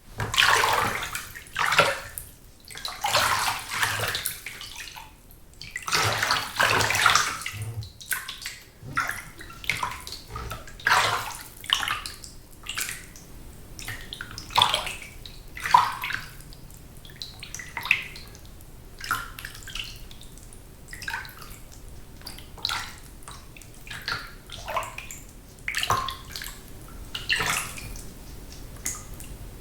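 Water in a bathtub being moved about: irregular sloshes and splashes, bigger and longer swells in the first several seconds, then shorter, lighter splashes and trickles.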